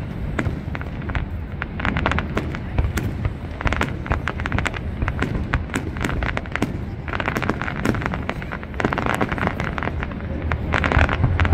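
Fireworks bursting in rapid crackling volleys, dense clusters of sharp pops over a steady low rumble.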